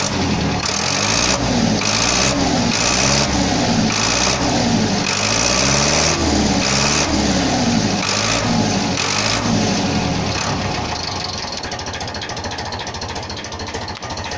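Zetor 6245 tractor's four-cylinder diesel engine revved up and down about once a second for roughly ten seconds, then settling back to a steady idle.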